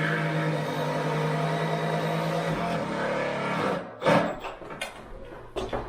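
A small electric motor, likely a power tool, runs steadily at one pitch and cuts off about four seconds in, followed by a few sharp knocks.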